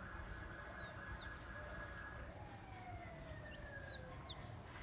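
Small birds give short, high, falling chirps several times over a faint low rumble. Behind them a long, steady distant tone runs until about halfway through, then gives way to a slowly falling one.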